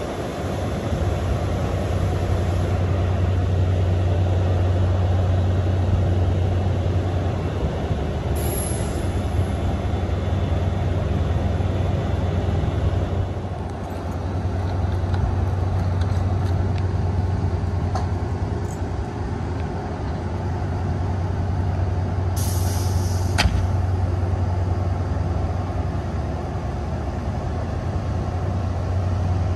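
NJ Transit ALP-45DP dual-mode locomotive standing with its diesel engines idling, a steady low drone. Short hisses of released air come twice, the louder one about two-thirds of the way through.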